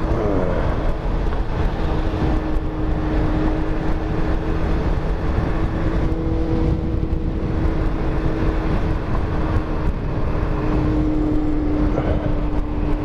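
Yamaha FZ1's inline-four motorcycle engine running at a steady cruising speed under a rush of wind noise, its note holding one pitch after a brief dip and rise at the start.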